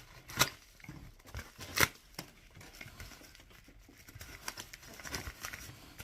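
Packaging rustling and crinkling as a mailed item is unwrapped and handled, with two sharp clicks, about half a second and about two seconds in.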